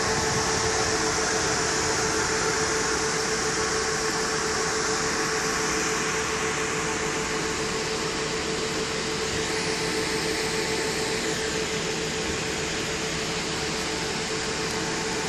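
Steady fan-like whir and hiss with a constant hum tone, from a parked stretch Hummer H2 limousine left running.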